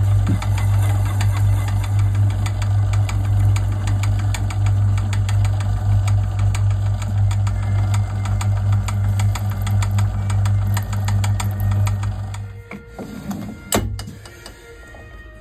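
Metal lathe running with an off-centre bronze pump casting in its four-jaw chuck: a steady motor hum with a fast ticking. About twelve seconds in the lathe is switched off and runs down, and a single sharp click follows.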